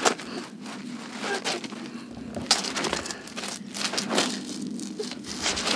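Irregular scuffs and scrapes of a climber's shoes and hands on a gritstone boulder, with a few sharper knocks about two and a half and four seconds in.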